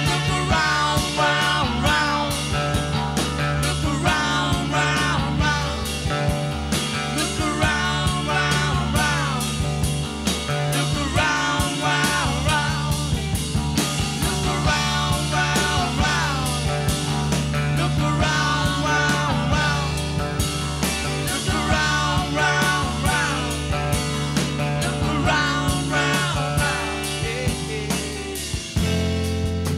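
Live funk-rock band playing: drum kit, bass guitar, electric guitar and a horn section with trombone. The music shifts to a new section near the end.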